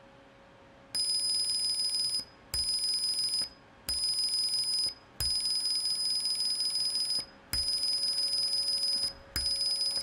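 Passive buzzer on an Arduino breadboard sounding a steady high-pitched 5,000 Hz tone, generated by the Arduino's tone() function, in six separate beeps of about one to two seconds each, one for each press of the push button. A low click marks the start of each beep.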